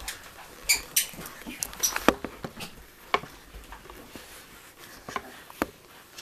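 Light rustling with scattered sharp taps and clicks, the loudest about two seconds in.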